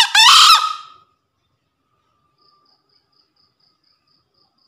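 Green junglefowl rooster crowing once, a short two-part call that ends about a second in.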